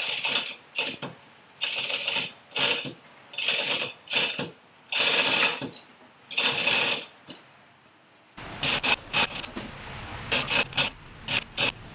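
Ratcheting mechanism clicking in repeated strokes, about one a second, then shorter, quicker clicks in the last few seconds.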